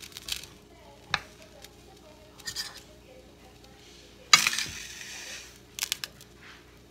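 A frying pan being handled: a few light clinks and knocks, then, about four seconds in, a loud burst of noise that fades over about a second as a chicken breast goes into the pan, followed by a few quick clicks.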